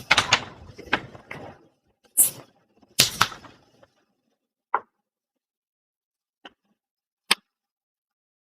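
Several short, sharp knocks and rustles close to a microphone in the first three and a half seconds, then three single clicks spaced apart, with dead silence between them.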